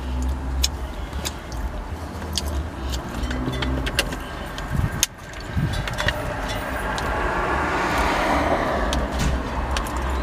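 Eating noises in a car, sharp lip smacks and finger-licking clicks, then sips from a plastic water bottle, over a steady low rumble of road traffic coming through the open car window. In the second half a passing vehicle swells up and fades.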